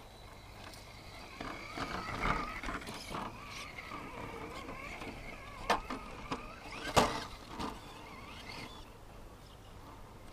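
Electric motor and drivetrain of an Axial SCX10 II Deadbolt RC rock crawler whining, rising and falling in pitch with the throttle as it crawls over rocks. Two sharp knocks a little over a second apart, the second the loudest, as the truck strikes rock.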